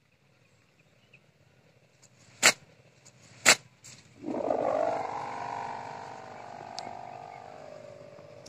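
A kite hummer (sendaren), a bamboo bow strung with mica gift ribbon on top of the kite, starts buzzing about four seconds in as the kite catches the wind and climbs: a droning hum whose pitch slowly slides down as it fades. Before it, two sharp snaps about a second apart.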